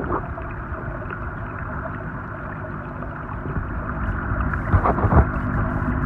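Muffled underwater ambience picked up by a camera submerged in a koi pond: a steady low rumble with a faint hum, and a couple of brief swishes about five seconds in.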